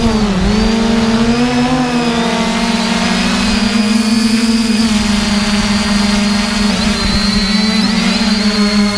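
Multirotor drone's electric motors and propellers whining steadily in flight. The pitch dips sharply just after the start and climbs back over the next couple of seconds as the throttle changes, then holds steady.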